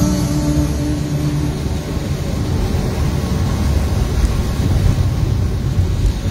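Car driving on a wet road, heard from inside the cabin: a steady low rumble of engine and tyres. Background music fades out in the first second or so.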